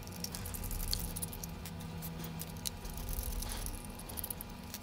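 Faint, scattered clicks and light scrapes of a small screwdriver turning screws in the body of an Okuma Epixor spinning reel, over a low steady hum.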